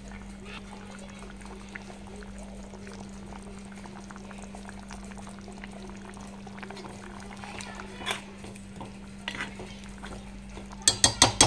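Okra tamarind curry bubbling at a simmer in an aluminium pot, over a steady low hum. A few light knocks of a steel ladle come later, and near the end a quick run of sharp metal taps as the ladle strikes the pot.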